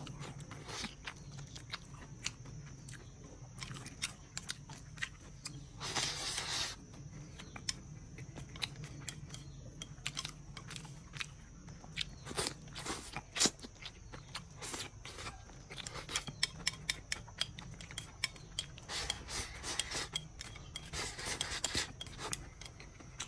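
Close-mouthed eating of soft braised eggplant: wet chewing and lip smacks with many short sharp clicks. There are longer slurps as strips are sucked in, about six seconds in and again from about nineteen to twenty-two seconds.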